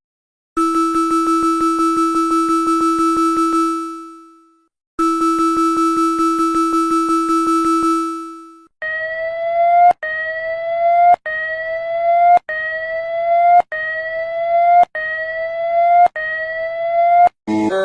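Synthesized emergency-alert alarm tones. A harsh, rapidly pulsing buzz tone sounds twice, each about four seconds long and fading out. It is followed by a rising whoop tone repeated seven times, about one every 1.2 seconds.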